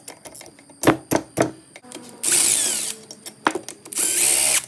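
A few sharp clicks of a socket and extension being fitted onto a bolt head, then two short bursts of a cordless power driver spinning out a 12 mm case bolt from a Subaru EJ engine block through a long socket extension, the second burst near the end.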